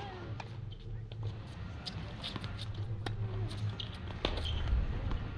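Tennis rally: a sharp pop of a racquet striking the ball right at the start, then several fainter hits and ball bounces spaced a second or more apart, over a steady low rumble.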